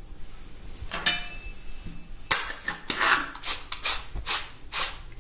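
Aluminium hand-cranked murukku press (thenkuzhal achu) being handled and assembled: a metal clink with a short ring about a second in, then a run of short scraping clicks, about two or three a second, as its threaded top is screwed onto the dough-filled cylinder.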